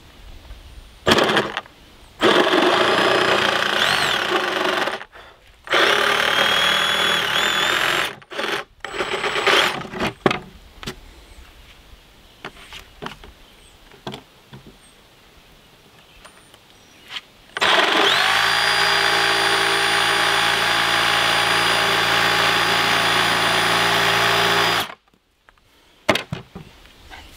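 Power jigsaw cutting through 3/4-inch plywood. It runs in several short starts and stops during the first ten seconds, then in one long steady run of about seven seconds near the end.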